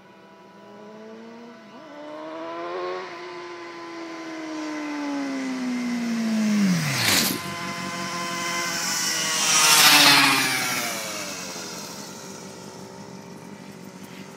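Two motorcycles racing past one after the other: a Honda CBR600RR sport bike and a 47cc pocket bike at full throttle. The first engine's pitch climbs, then drops steeply as it passes close about seven seconds in. The second, louder and buzzier, passes about ten seconds in and then fades away.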